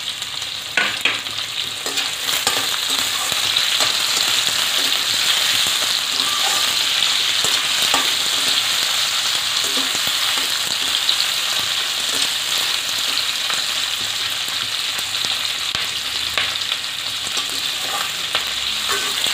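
Chunks of onion, capsicum and tomato sizzling in hot oil in a stainless steel kadai, with a steady frying hiss. A steel slotted spatula stirs them, clicking and scraping against the pan now and then.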